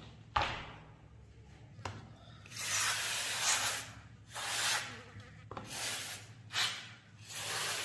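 Spray hissing in about five bursts, each from half a second to a second and a half long, the last one the longest. A sharp click comes just under half a second in.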